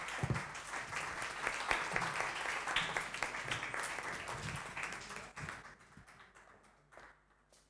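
Audience applauding. The clapping dies away from about five seconds in, with a few last scattered claps near the end.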